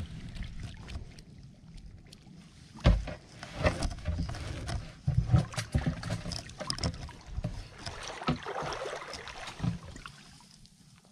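Shallow seawater splashing and sloshing as hand scoop nets are swept and jabbed through it, in irregular bursts, with the loudest splashes about three and five seconds in.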